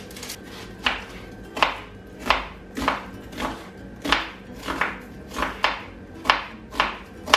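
Kitchen knife slicing a red onion on a wooden cutting board: about a dozen sharp taps of the blade through the onion onto the wood, at a steady pace of roughly one and a half cuts a second.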